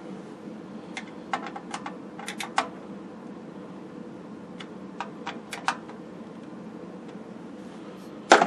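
Light clicks and taps of small hardware being fitted by hand into the grommeted mounting holes of a television's steel chassis, in a few small clusters, with a sharper double knock near the end. A steady hum runs underneath.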